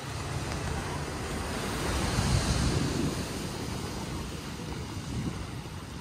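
Small waves washing onto a sandy shore with wind blowing on the microphone, the surf swelling louder about two seconds in and then easing off.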